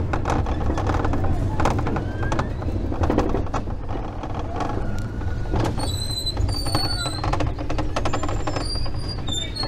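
Tilt-A-Whirl ride in motion: a steady rumble and irregular clattering, with wind buffeting the microphone, and short high squeals in the second half.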